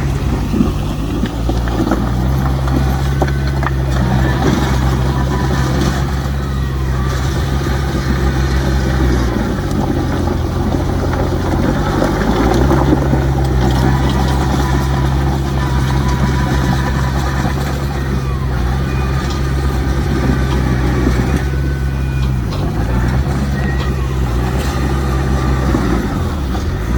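Heavy diesel engine of earthmoving machinery running under load. The engine note sags for about three seconds some nine seconds in, and briefly twice more near the end, as the load changes.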